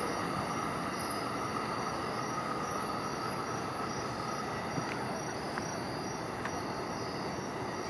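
Insects chirping in a rapid, even pulse, about three chirps a second, over the low rumble of a commuter train pulling away down the track. A faint wheel squeal fades out over the first few seconds.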